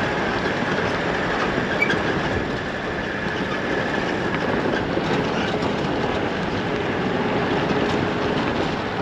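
A 79 Series LandCruiser towing a caravan along a gravel road with corrugations and loose stones, heard from outside the vehicle: steady tyre-on-gravel rumble with continuous rattling.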